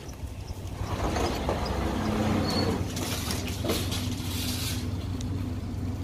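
A steady mechanical hum with a rush of air that rises about a second in, as the store's automatic entrance doors open.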